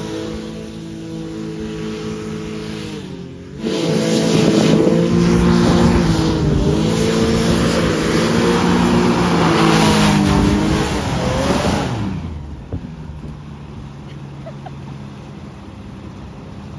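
SCAT personal hovercraft's engine and propeller fan running as it is driven across flooded grass, the pitch wandering up and down with the throttle. About twelve seconds in it drops to a quieter, steady idle.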